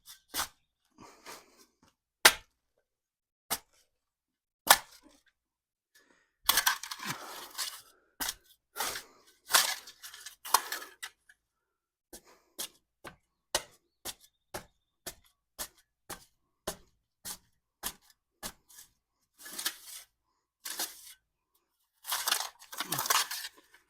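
Shovel digging into dirt: irregular sharp strikes and several short scraping bursts as soil is cut and moved.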